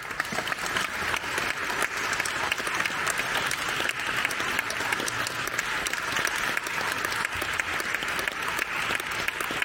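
Audience applauding, breaking out suddenly at the start and keeping up steadily.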